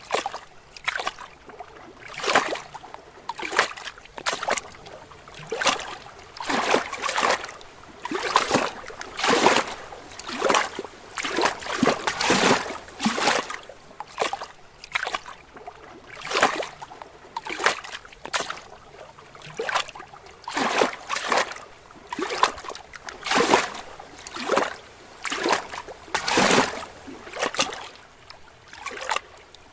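Small lake waves lapping against rocks: an uneven run of soft splashes, about one a second, over a faint wash of water.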